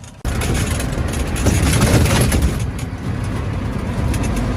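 Loud, steady wind and road noise from riding along a highway in a small electric vehicle, a low rumble under a rushing hiss that cuts in suddenly about a quarter second in.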